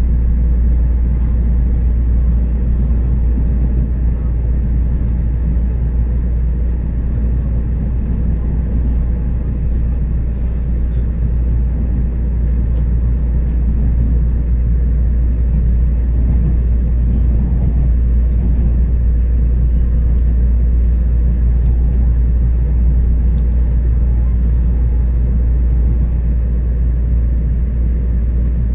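Steady low rumble of a Tze-Chiang Limited Express train running along the line, heard from on board.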